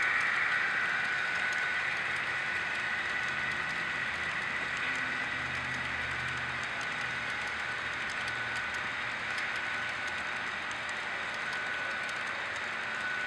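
HO scale model freight cars rolling along the track: a steady rolling hiss from the small metal wheels on the rails, with a thin steady whine and faint light clicking.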